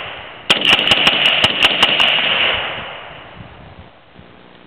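AR-15 rifle bump-fired: a rapid string of about ten shots in a second and a half, starting about half a second in. The report echoes off the quarry and fades out by about three seconds in.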